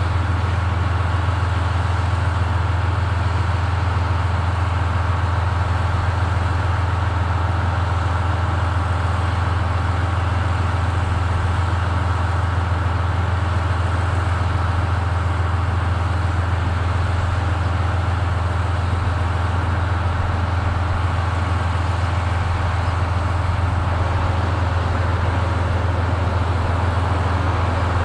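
Diesel railway engine idling at a standstill, a steady low hum.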